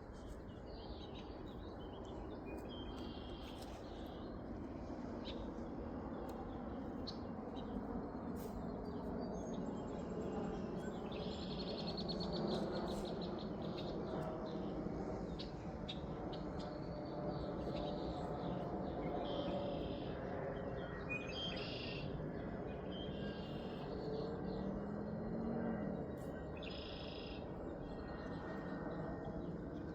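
Songbirds singing short, repeated high phrases, several times through the stretch, over a steady low outdoor rumble.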